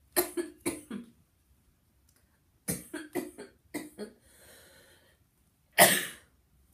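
A woman coughing in three bouts: a few short coughs at the start, a longer run of coughs about three seconds in, and one loud single cough near the end. She is ill, with chest pains and a fever.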